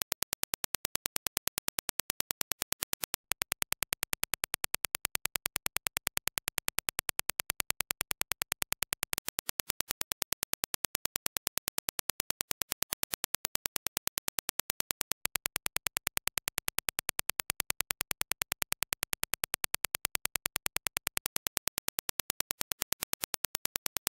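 Reference Dirac impulse test signal: a rapid, evenly spaced train of sharp clicks at a steady level.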